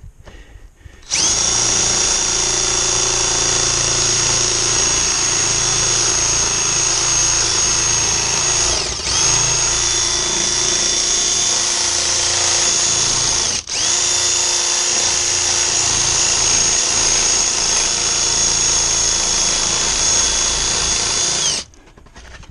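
Cordless power tool running steadily with a high whine as it cuts through the ridges of a metal roof panel. The pitch sags briefly about nine seconds in, the tool cuts out for an instant a few seconds later, and it stops shortly before the end.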